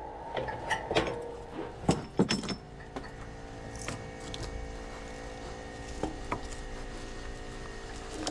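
A quick run of sharp metal clanks and knocks in the first couple of seconds, from scrap transformers being struck and handled. After that comes a steady hum with a few separate clicks.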